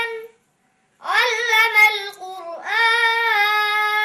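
A boy's solo voice chanting melodically, unaccompanied, with long held notes and ornamented turns in pitch. A phrase ends just after the start; after a short pause he sets off again about a second in and sustains a long held note near the end.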